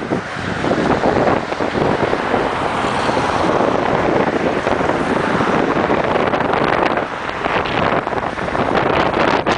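Freight train of covered grain hopper cars rolling slowly past on the rails, with strong wind buffeting the microphone.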